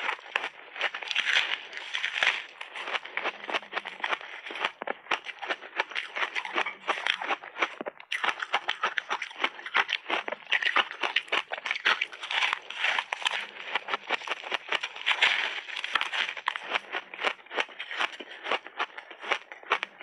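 Frozen layered ice cake crunching as it is bitten and chewed in big bites: a dense run of sharp, crackling crunches with no pause.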